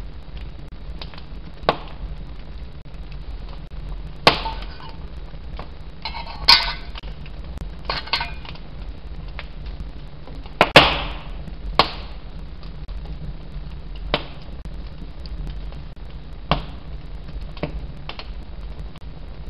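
Flint and steel being struck for sparks: about a dozen sharp scraping strikes at irregular intervals, some in quick rasping flurries. The loudest, about eleven seconds in, rings briefly.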